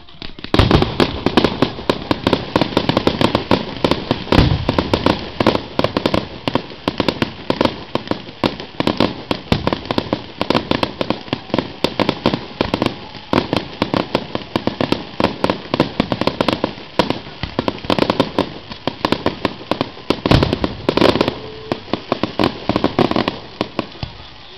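Aerial fireworks going off in a dense barrage of bangs and crackles, many reports a second. It starts about half a second in and thins out near the end.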